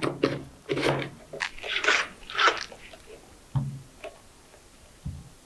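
Metal detector shaft and control-box parts being handled and fitted together: a run of crunchy plastic scrapes and clicks in the first two and a half seconds, then a few softer knocks.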